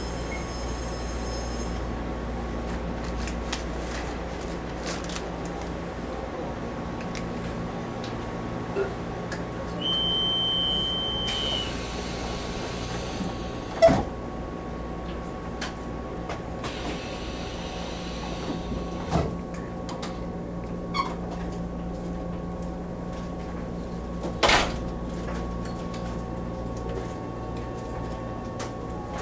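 Inside a Taiwan Railway EMU700 electric commuter car standing at a platform: a steady electrical hum, a high beep of about a second and a half about ten seconds in, then a sharp knock about fourteen seconds in as the sliding doors shut. A few softer knocks follow.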